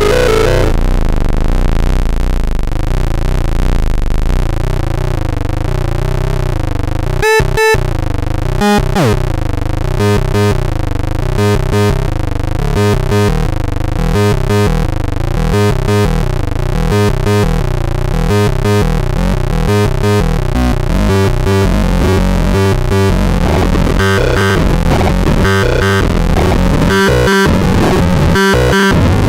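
Circuit-bent noise sequencer playing harsh electronic tones and noise: a wavering drone at first, then about seven seconds in it breaks into a stuttering, evenly repeating pulsed pattern with short dropouts.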